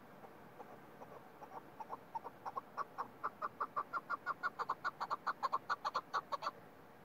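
Chukar partridge calling: a series of short clucking notes that starts faint about a second in, speeds up and grows louder to about five or six notes a second, then stops abruptly near the end.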